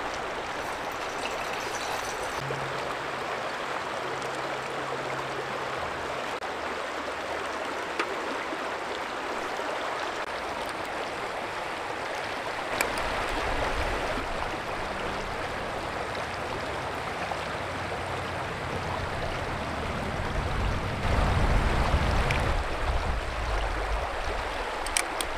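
Shallow stream flowing over a stony bed, a steady rushing of water, with a few light clicks and low rumbling swells, the strongest near the end.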